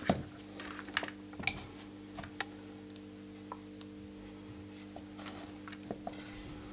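Small scattered clicks and taps as metal multimeter probe tips touch and slip on the leads of an electrolytic capacitor held in the fingers, about half a dozen spread over several seconds, over a faint steady hum.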